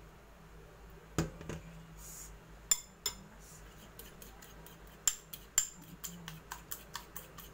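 Metal spoon and fork clinking against ceramic bowls: a dull knock about a second in, a couple of sharp clinks, then a quick run of clinks in the last couple of seconds as the bowl of beaten egg is handled with a fork in it.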